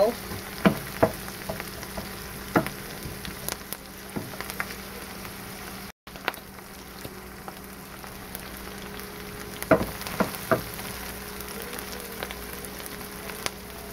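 Chopped onions and garlic sizzling steadily in oil in a ceramic nonstick frying pan, with a few sharp knocks of a wooden spatula against the pan as they are stirred.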